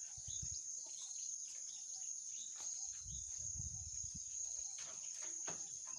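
Steady high-pitched chirring of an insect chorus, with faint scattered clicks and a low rumble of handling noise partway through.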